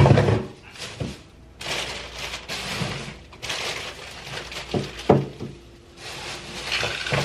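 A loud thump, then bursts of rustling and several sharper knocks.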